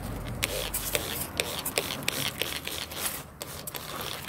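Plastic trigger spray bottle squirting in quick, irregular short hissing sprays, with squash leaves rubbing and rustling as they are bent over and handled.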